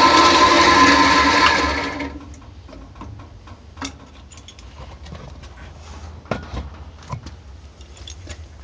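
Milling machine running with a steady whine as its end mill takes a light cut on a C-clamp held in the vise. The mill shuts off and winds down about two seconds in, followed by scattered light clicks and knocks of metal parts being handled.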